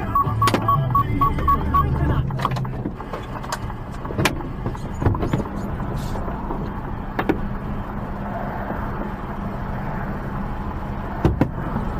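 Inside a truck's cab, the engine runs with a steady low hum as the truck comes to a stop. A rapid electronic beeping, about four beeps a second, sounds for the first two seconds, and scattered clicks and knocks come through the rest.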